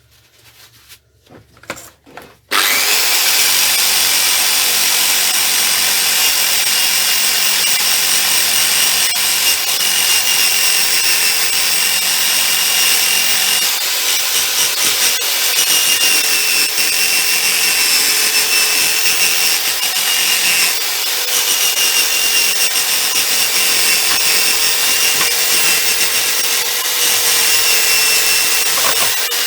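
Electric power tool starting about two seconds in and running steadily with a constant whine, stripping rust and old paint off small metal mower parts ready for powder coating; a few light clicks come before it starts.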